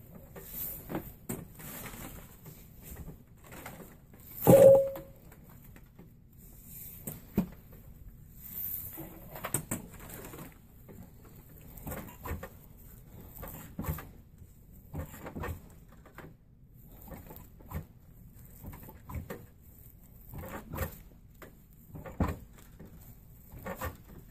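Braiding strands of a bronc rein being worked by hand and pulled tight, an irregular series of short rustles and swishes roughly every second. One much louder knock about four and a half seconds in.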